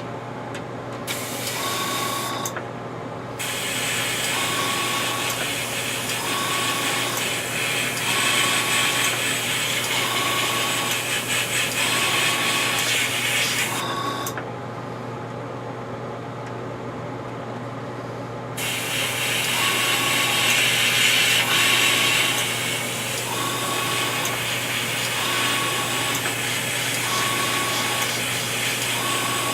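Airbrush spraying paint in spells: its hiss breaks off about a second in and again for several seconds midway, over the steady hum of the air compressor.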